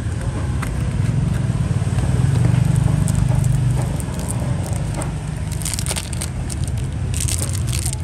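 Handling noises while a Zippo lighter is picked up and shown: a few light clicks, then two short crackly rustles, the second near the end. A steady low hum runs underneath.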